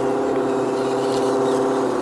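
RC rock crawlers' electric motors and geared drivetrains running at a steady pitch as they crawl over loose rocks, a held hum of several tones.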